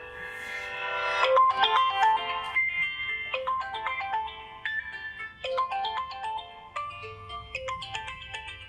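Smartphone ringtone playing a melody of short, bright notes, which signals an incoming call. It swells up over the first second, then runs on as a stepping tune.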